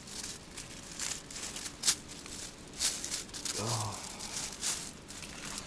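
Tent fabric and bedding rustling and crinkling in short, irregular bursts as a person shifts position inside a small tent. About three and a half seconds in there is a brief low grunt or murmur.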